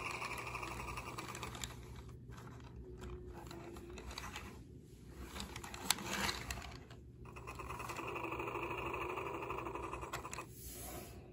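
VTech toy bulldozer playing its electronic engine sound effect through its small speaker, a steady buzzing rumble that fades out early on and comes back about two thirds of the way in, stopping just before the end. Clicks and knocks of the plastic toy being handled fill the gap.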